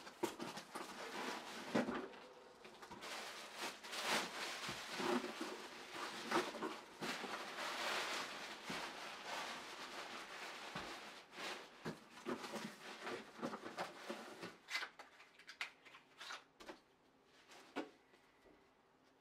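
Cardboard box flaps opened, then the folded nylon fabric of an airblown inflatable rustling and crinkling for over ten seconds as it is pulled out and unfolded. Near the end, scattered small clicks and taps as the power cord is handled.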